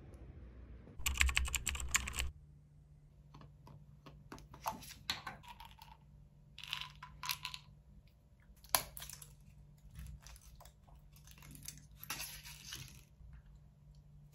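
A brief loud rustle near the start, then small clicks, taps and crinkles of a plastic supplement jar, its lid and a pill blister pack being handled on a table, over a faint steady low hum.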